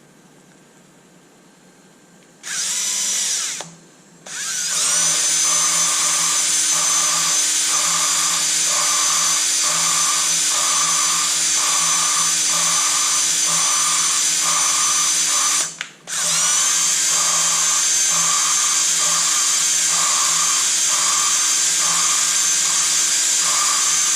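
Electric drill spinning an engine valve through a rubber hose to lap it into its seat with valve grinding compound: a steady motor whine over a rhythmic gritty grinding. The drill runs in a short burst, stops briefly, runs a long stretch, stops again for a moment, then runs on.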